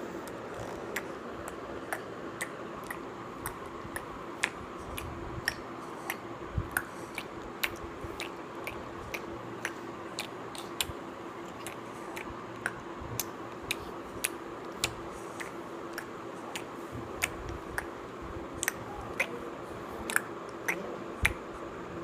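A five-month-old baby sucking milk, making many short, wet clicking and smacking sounds at an irregular pace of about two a second, over a steady background hum.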